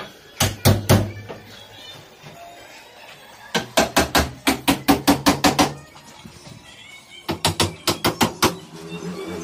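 Claw hammer striking wooden boards on a concrete-block counter. There are three blows near the start, a quick run of about ten blows at about five a second a few seconds in, and another fast run near the end.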